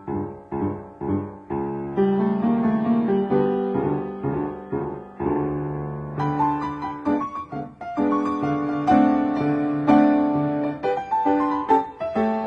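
Piano music. Short detached chords come about twice a second at first, then after about two seconds a melody moves over held bass notes.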